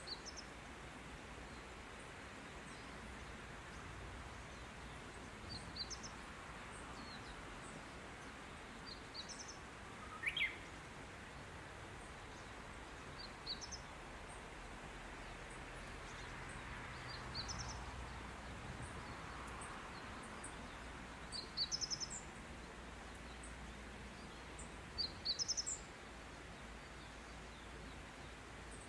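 Small birds chirping now and then outdoors: short, high chirps in clusters of two to four every few seconds, with one lower rising call about ten seconds in, over a steady open-air background hiss.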